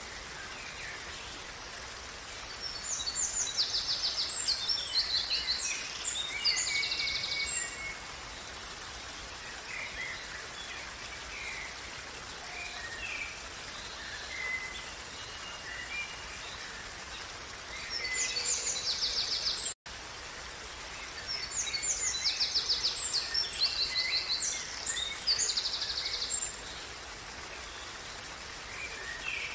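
Steady rush of a running stream with songbirds singing over it: scattered chirps and two bouts of rapid, high trilling song, the second repeating the first. The sound drops out for an instant a little past the middle.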